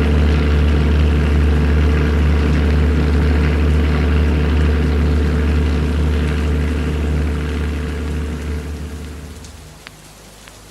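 Propeller aircraft engines droning steadily with a low pulsing hum, fading out about nine seconds in and leaving a quieter hiss with a couple of faint clicks.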